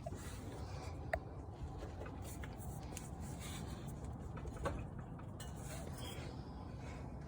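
Lexus GX460 suspension popping while the truck turns: two short sharp pops, about a second in and about four and a half seconds in, over a steady low rumble.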